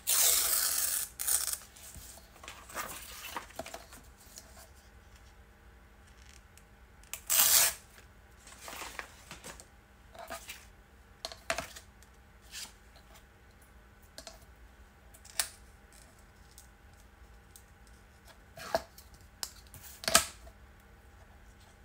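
A thin book page being handled and trimmed against a clear acrylic ruler on a cutting mat. Short bursts of paper rustling and scraping come loudest at the start and again about seven seconds in, with scattered light taps and clicks of paper and ruler between.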